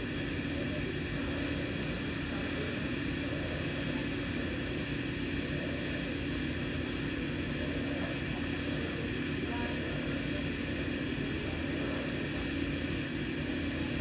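Steady hum and hiss of a TIG (GTAW) welding arc burning continuously on stainless steel pipe, with no breaks or pops.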